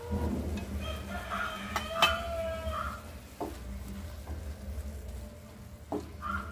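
Wooden spatula stirring thick tomato curry in a nonstick frying pan, with a sharp knock against the pan about two seconds in and a few lighter ones later. Repeated pitched bird calls sound over it in the first half.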